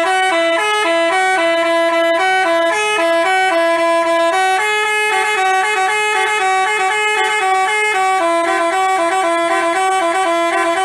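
Bus 'telolet basuri' musical air horn playing a quick tune of short held notes, two notes an octave apart sounding together and changing a few times a second.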